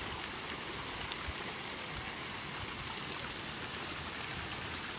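Steady splashing of thin fountain jets falling onto a swimming pool's surface, with a swimmer's kicks and strokes splashing in the water.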